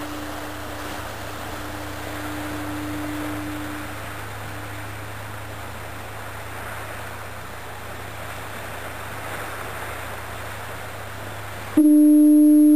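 CG-1000 electronic foghorn at a lighthouse. The steady low tone of one blast fades away over the first few seconds, leaving a steady outdoor hiss. About a second before the end, the next loud, steady, single-pitched blast starts abruptly.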